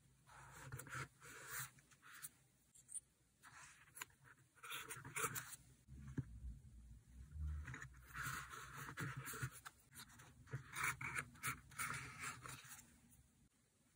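Paper rustling and scraping in bursts as cut-out paper labels are laid onto a kraft-paper journal page and smoothed down by hand, with small clicks and one soft low thud about halfway through.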